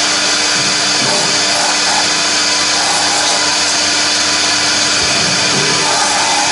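CNC router spindle running while its cutter mills a rotating block of foam, a steady high hiss over a low steady hum.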